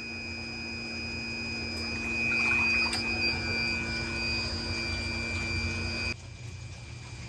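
Electric water pump running with a steady whine and water noise as it drains floodwater; the whine stops abruptly about six seconds in.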